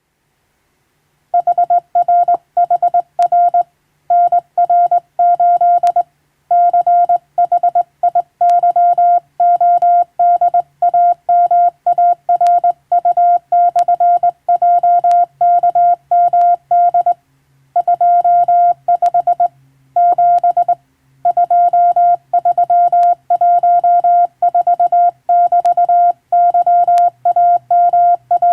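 Morse code sent by hand on a straight telegraph key: a steady single-pitched tone keyed on and off in dots and dashes, grouped into letters and words with short pauses. It begins about a second in.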